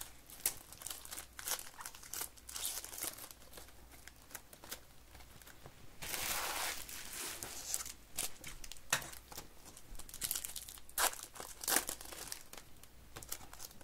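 Foil wrappers of 2023 Topps baseball card packs crinkling and tearing as the packs are opened, with cards being handled. There are many short crackles, and a longer, denser rustle about six seconds in.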